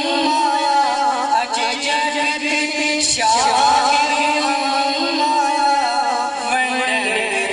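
A man singing devotional verses in a chanting style into a microphone, in long drawn-out ornamented phrases with a break about three seconds in.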